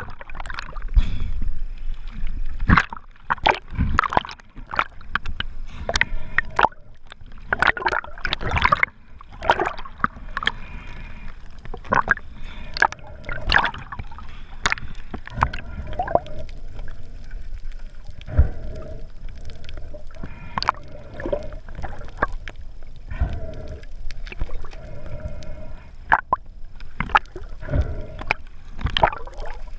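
Muffled water sloshing and gurgling recorded underwater, with many sharp clicks and knocks scattered throughout. The rushing is heavier for the first several seconds, as the camera moves from the surface down to the reef, then settles to a quieter background.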